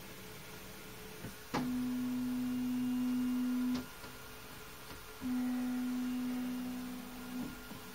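Flashforge Adventurer 5M Pro 3D printer's stepper motors making two moves, each a steady hum at one pitch lasting about two seconds and starting with a click, as the printer gets ready for its first test print.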